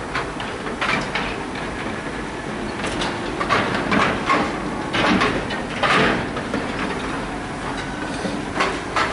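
Fly line and rod in a cast: a series of short rushing swishes as the line is picked up, stripped and whipped through the air, loudest in the middle of the cast.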